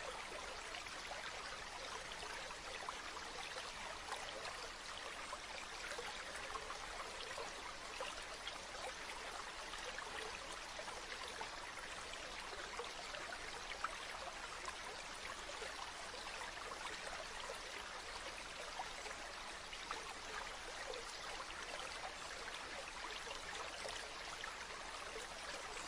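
A stream flowing steadily: an even rush of water flecked with small trickling splashes.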